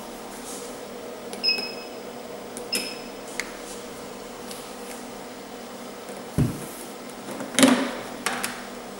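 Nd:YAG laser machine humming steadily, with two short high beeps about a second and a half in and again a second later. Near the end a thump, then a clatter and a few clicks as the plastic handpiece is knocked into its holder on the side of the unit.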